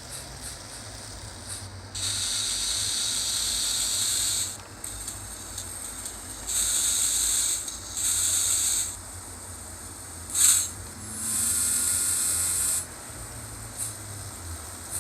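Steam-locomotive sound decoder (Digitrax) in an N-scale model of a Renfe 140 class 2-8-0 playing steam hiss through the model's small speaker. It gives several separate bursts of hiss: a long one about two seconds in, two shorter ones, a sharp short puff about ten seconds in, and another long burst after it.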